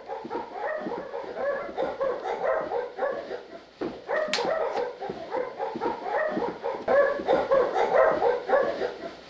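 Tracking dogs yelping and whining in quick, repeated pitched calls, a few each second, with one short sharp sound about four seconds in.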